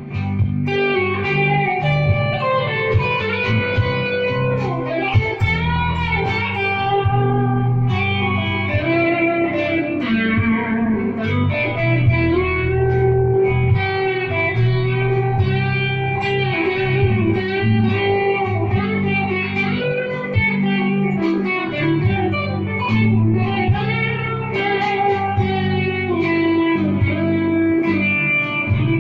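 Electric guitar played solo: picked chords and melody lines, with string bends and vibrato on held notes.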